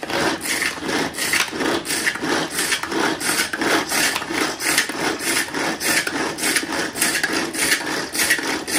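Manual pull-cord food chopper being worked fast: each pull of the cord spins the blades inside the plastic bowl, giving rapid repeated whirring, rasping strokes, about three a second, as it chops seasoning vegetables.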